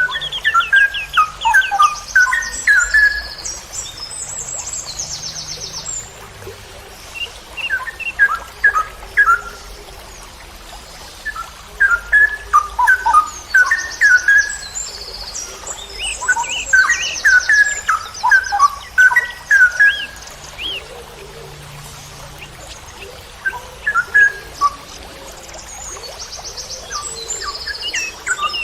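Straw-headed bulbul (cucak rowo) singing: several phrases of rapid, loud, fast-changing notes separated by short pauses, with thin, fast, high trills coming in at times.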